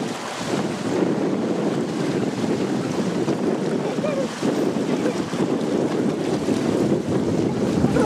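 Steady rushing noise of wind buffeting the microphone over choppy open water.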